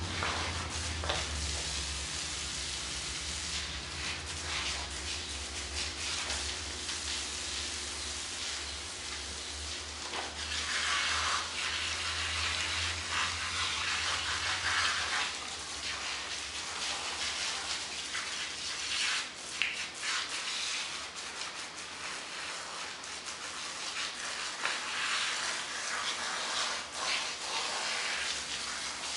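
Garden hose spraying water onto a dog's wet coat and the pavement: a steady hiss of water that swells and fades as the spray moves.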